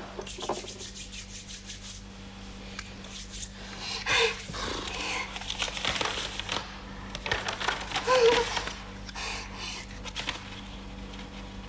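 Paper being handled and unfolded, with rustling of paper and bedclothes. Louder rustles come about four and eight seconds in.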